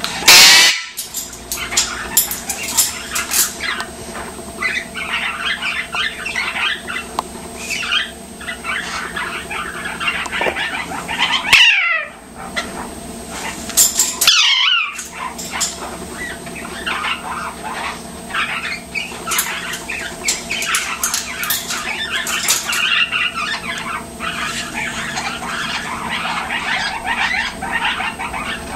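Male Eclectus parrot chattering and babbling almost without pause, with a few loud squawks: one at the very start and two more about halfway through, falling in pitch.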